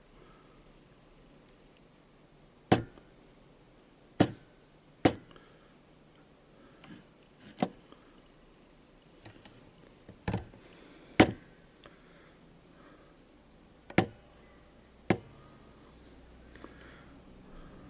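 A series of about eight sharp, irregular knocks and clicks, a second or two apart, from the soldering-iron insert-setting rig and its mount being worked.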